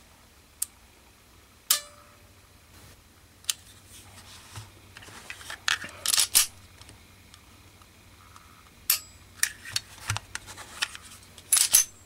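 Sharp clicks and light clacks of small .380 micro pistols being handled, dry-fired and set down, with a single click about two seconds in, a short cluster around six seconds and a quick run of clicks in the last few seconds.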